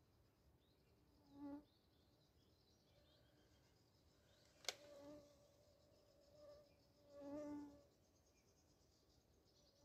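A flying insect buzzing past close by several times, each pass swelling and fading, the longest about three quarters of the way through. A single sharp click comes near the middle.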